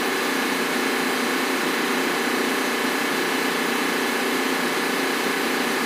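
Steady machinery noise of a ship's engine room: a constant running drone with a thin, steady whine over it, unchanging throughout.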